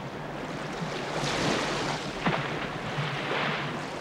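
Choppy sea water rushing and splashing around a small inflatable boat, with wind on the microphone; the rush swells about a second in and again after three seconds.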